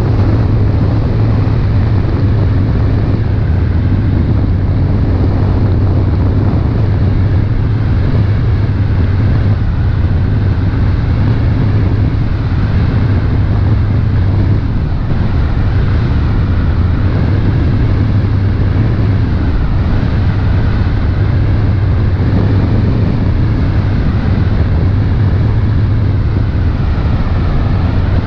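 Motor launch's engine running steadily at cruising speed, a constant low drone, with a rushing noise of wind and water over it.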